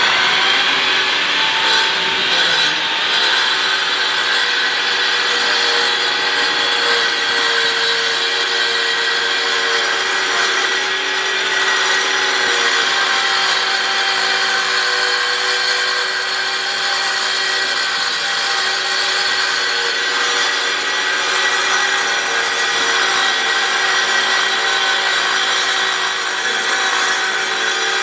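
Perfect Trac joint-cleaning machine's 15-amp saw motor running steadily as it is pushed along a concrete floor joint, cutting out the joint, with a constant high whine.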